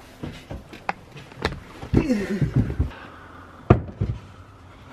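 Wooden boards being handled and set down: scattered knocks and clicks, a cluster of thumps about two seconds in, and one sharp, loud knock near the end.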